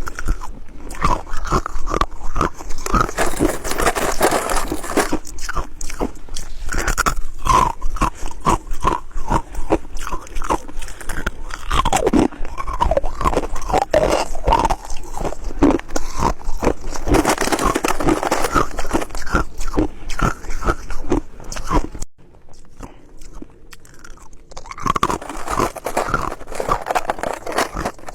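A person biting and chewing ice: rapid, dense crunching with wet mouth sounds, easing off for a few seconds near the end before the crunching starts again.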